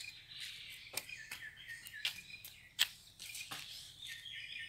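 Birds chirping in the background, with several sharp clicks in between, the loudest about three seconds in.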